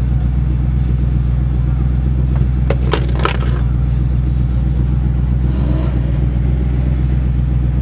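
Truck engine idling with a steady low drone, heard from inside the cab, with a few sharp clicks about three seconds in.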